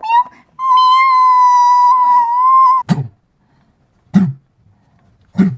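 A person's high voice making a short kitten-like meow, then holding one long, steady, high cry for about two seconds. Then come three sharp knocks about a second apart, like a small toy figure knocked against a tabletop.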